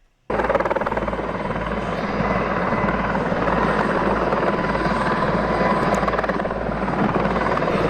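Mi-26 heavy-lift helicopter running, its rotor and twin turbine engines making a dense, steady noise with a faint steady whine, cutting in abruptly just after the start.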